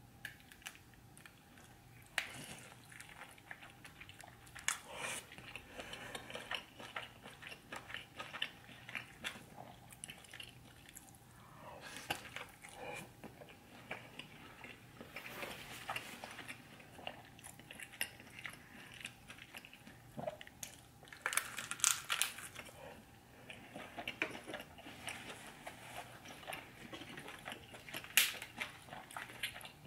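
A person eating a seafood boil close to the microphone: wet chewing and biting with irregular smacking and clicks, some bites crunchy. A cluster of louder bites comes about two-thirds of the way through, and one sharp click near the end.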